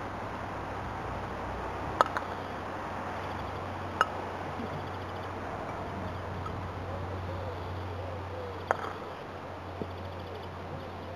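Sharp clacks of a croquet mallet striking the ball, three of them: about two seconds in, about four seconds in, and near nine seconds in, over a steady outdoor hiss.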